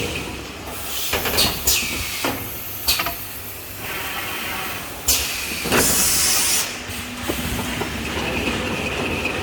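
Toilet-paper rewinding machine running, with a series of sharp clacks and short hisses; the loudest hiss comes about six seconds in.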